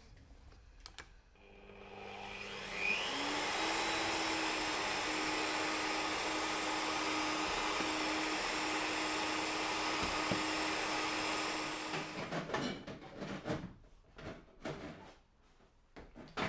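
Shop vacuum used for dust extraction on a scroll saw, switched on and spinning up with a rising whine, running steadily with a hiss and hum for about nine seconds, then switched off and running down.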